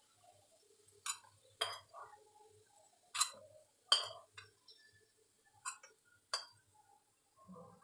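Metal spoon tapping and scraping against a small metal kadai, knocking fried coconut pieces out into the batter: about six sharp clinks at uneven intervals, the loudest a little past the middle.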